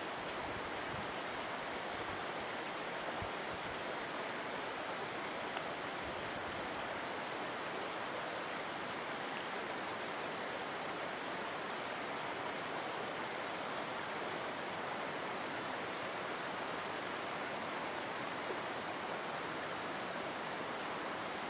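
A shallow river running steadily over rocks, an even rush of water.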